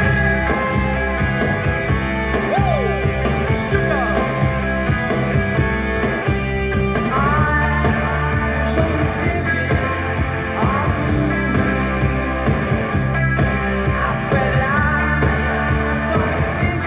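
Rock-and-roll song with a singer, played through a vintage Pioneer SX-580 stereo receiver and JVC bookshelf speakers.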